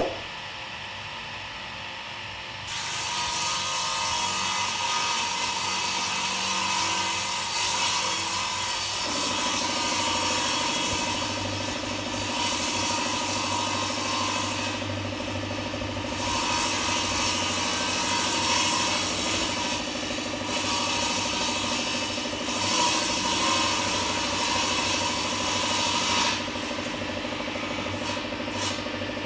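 Table saw cutting wooden boards: the blade hisses through the wood in long passes that ease off briefly several times, over a steady motor hum that settles in about a third of the way through. A sharp click sounds at the very start.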